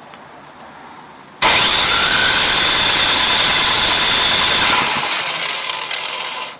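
Husqvarna ST224 snowblower engine cranking over without catching. The noise starts suddenly about a second and a half in, holds steady for over three seconds, then drops and fades out.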